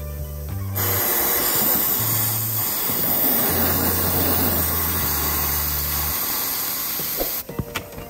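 Aerosol can of air-conditioner cleaning spray hissing steadily into a wall-mounted air conditioner's indoor unit. The hiss starts just under a second in and cuts off about half a second before the end, over background music with a low, stepping bass line.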